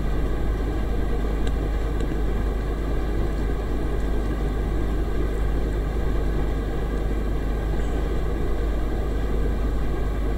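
Steady low hum and rumble of background noise, even throughout, with nothing else happening.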